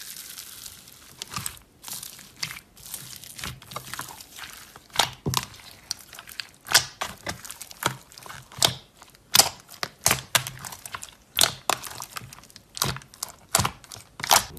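White slime mixed with foam beads (floam) being pressed and kneaded by hand: irregular sharp crunching crackles and pops, getting louder and more frequent after the first few seconds.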